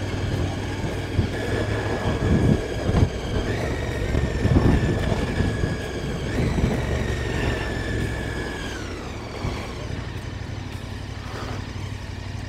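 KTM motorcycle engine running on the move, with wind buffeting the microphone. The engine note steps up twice and then falls away, as when changing gear and slowing in town traffic.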